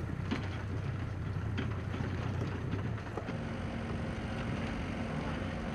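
A motorboat engine runs with a steady low drone, with scattered clicks and knocks. About three seconds in, the sound changes to another steady engine hum with a held tone, from an excavator running at the burial pit.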